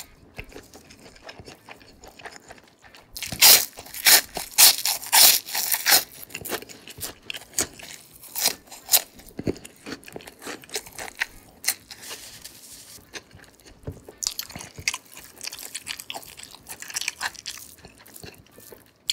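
A person eating close to the microphone. A run of loud crunching bites comes a few seconds in, then steadier chewing with lighter crunches.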